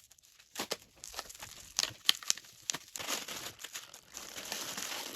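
Plastic packaging crinkling and rustling as the shoe rack's parts are handled, with irregular sharp clicks. The rustle grows denser about three seconds in.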